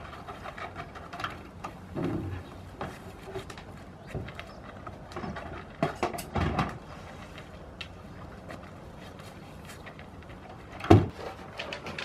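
Irregular knocks, taps and rustling, with a few dull thuds and one loud thump about eleven seconds in.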